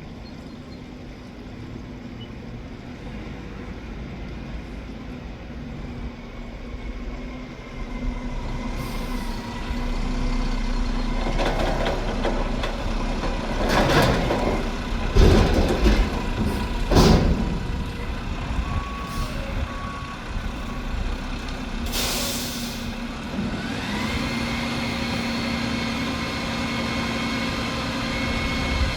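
Mack McNeilus front-loader garbage truck running and drawing closer, its diesel engine growing louder, with a run of loud noisy bursts about halfway and a sharp air-brake hiss a little later. Two short beeps sound between them, and the engine note rises near the end as the truck pulls away.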